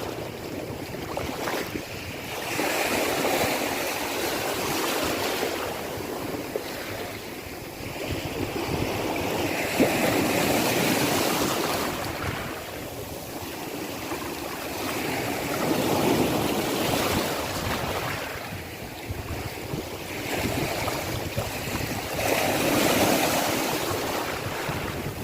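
Sea waves breaking and washing in, swelling and fading about every six seconds.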